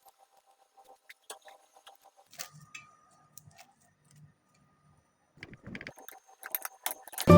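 Faint, scattered light clicks and taps, coming more often near the end.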